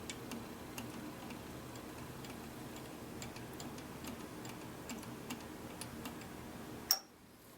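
Faint, irregular light clicks and taps while the drip-cup oilers of an old Porter 16-inch jointer are being oiled, over a low steady hum. A sharp click near the end, after which the sound drops away.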